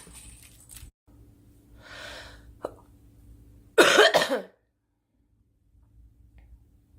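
A girl draws an audible breath, then coughs once, loudly, about four seconds in.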